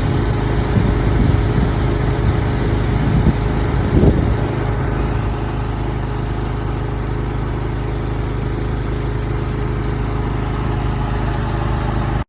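A motor-driven machine running with a steady hum. In the first four seconds uneven surges and knocks ride over it, the strongest about four seconds in, and then it settles to an even hum.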